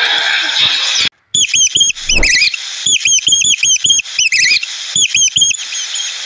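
Rats squeaking: many short, sharp, high-pitched squeaks in quick clusters of two to four, coming loud for several seconds and fainter near the end. Before them, about a second of busy background chirping cuts off abruptly.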